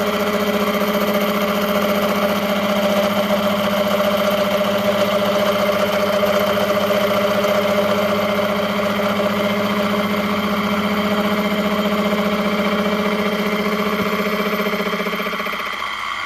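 Small Warco milling machine running with its gear cutter spinning, a steady motor and spindle hum. The lowest part of the hum drops away near the end.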